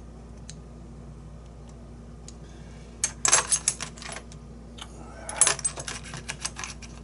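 Small metal lock parts and tools clinking and rattling as they are handled, in a short cluster about three seconds in and again from about five seconds on.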